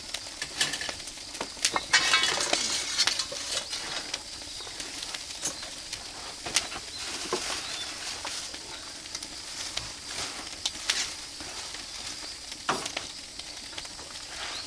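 Food sizzling on a barbecue over an oak-wood fire, with scattered sharp crackles and pops. The sizzle swells louder about two seconds in.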